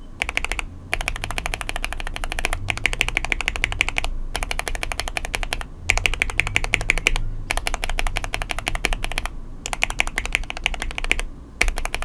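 Fast repeated keystrokes on a mechanical keyboard: lubed linear switches, an Akko CS Jelly Black and a lubed and filmed Gateron Black, tapped in turn. The taps come in quick runs of about ten a second, with short pauses between the runs.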